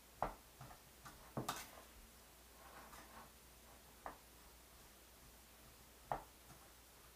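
Faint, scattered clicks and knocks from stirring vinegared sushi rice in a mixing bowl. The loudest cluster comes about a second and a half in, with single knocks around four and six seconds.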